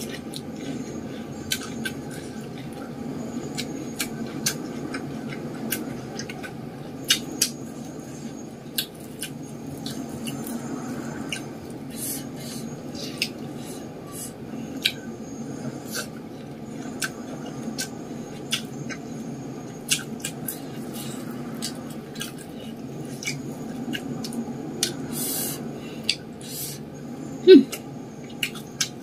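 Close-miked eating sounds: chewing and lip smacks as rice and side dishes are eaten by hand, heard as many short sharp clicks over a steady low hum. One louder brief sound comes near the end.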